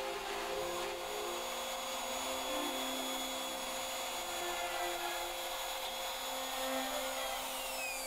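Plunge router with a 3/8-inch bit running steadily while cutting a mortise in walnut, a constant motor whine over the cutting noise. Near the end the motor is switched off and its whine falls in pitch as it winds down.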